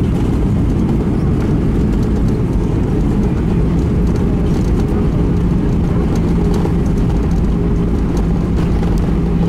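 Cabin noise inside an Airbus A320 slowing on the runway after touchdown: a loud, steady low rumble from the engines and rolling gear, with a steady hum joining about halfway through.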